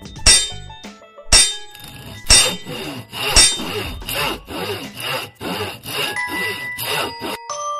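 Background music: struck, ringing notes about once a second, quickening to about two a second, ending on a held ringing note near the end.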